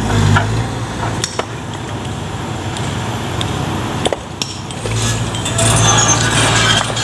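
Excavator engine running under load while rocks fall down a quarry face, with a few sharp knocks of stone on stone. From about five seconds in the engine grows louder and a rush of tumbling rock and gravel joins it.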